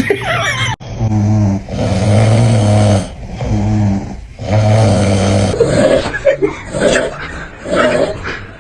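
Loud snoring: several long breaths of about a second each on a steady low pitch, then shorter ones coming faster over the last few seconds.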